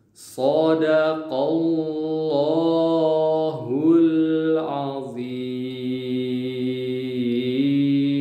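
A man's voice chanting a Quran verse in slow melodic recitation, with long held vowels and smooth glides between pitches. One note is held for about three seconds near the end.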